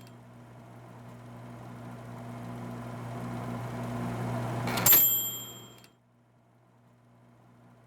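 A low steady hum swells for about five seconds. Then a typewriter's bell dings once and rings out, and the hum drops away to a faint drone.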